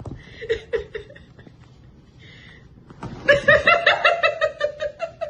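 A person laughing: a few short chuckles early, then a sustained run of quick ha-ha syllables from about three seconds in.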